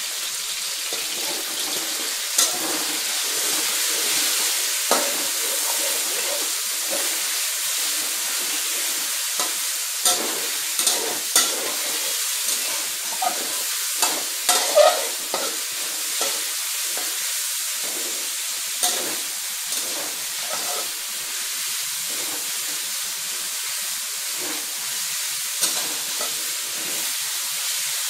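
Cubes of skinless pork belly sizzling in hot oil in a wok, stirred with a metal wok spatula. The spatula scrapes and clicks against the pan now and then, most often around the middle.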